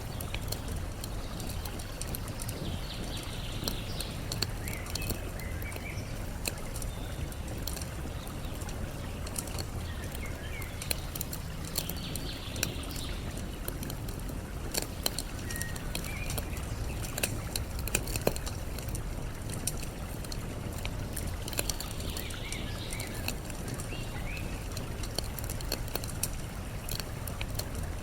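Campfire crackling with sharp pops scattered throughout, over a steady rush of flowing water. Short clusters of bird chirps come in a few times.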